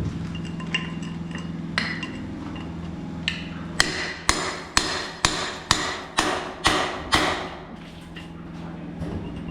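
Hammer blows on wood. A few scattered taps come first, then a steady run of about eight strikes, about two a second, each ringing briefly.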